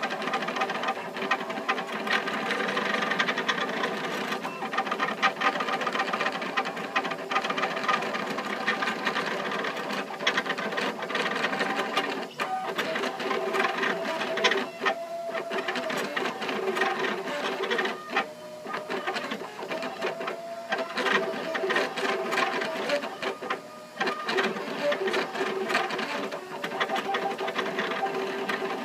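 Aluminatus 3D printer running at high speed (126 mm/s perimeters, 180 mm/s infill), its stepper motors singing in quickly shifting tones as the print head darts back and forth. A few brief lulls come where the moves pause or turn.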